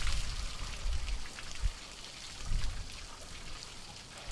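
Water gushing out of the open suction inlet of a Godiva fire pump and splashing onto the fittings below, easing to a thin trickle in the last second or so. It is the fire engine's water tank draining out because the lever that would have stopped it was not pulled. A few dull low bumps in the first three seconds.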